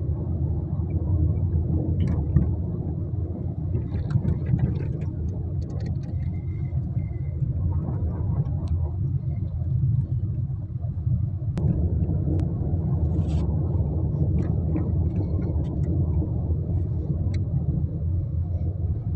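Car driving along a street, a steady low rumble of engine and road noise, with a few light clicks and rattles.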